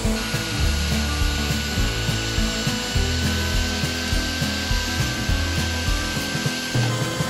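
Corded electric chainsaw running and cutting into eastern white pine, its motor giving a steady whine that sags slightly under load.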